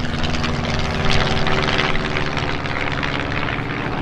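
Piston engine and pusher propeller of a Rutan canard homebuilt flying past: a steady droning hum.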